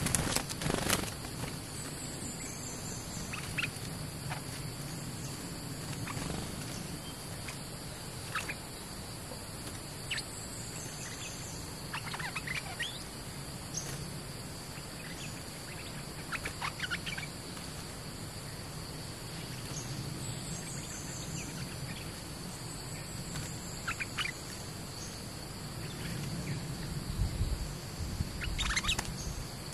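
Bulbuls calling in short chirps and quick whistled notes every second or two, over a steady high-pitched insect drone. There is a sharp knock at the very start and a low rumble near the end.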